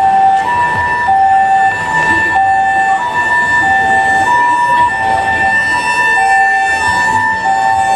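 Japanese ambulance siren sounding its two-tone hi-lo "pee-poh" call, a higher and a lower tone taking turns about every 0.6 seconds, on an emergency run.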